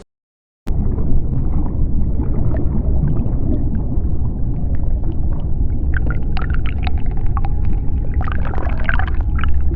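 Turtle sounds: short squeaky calls and clicks, mostly in the second half, over a heavy, steady low rumble.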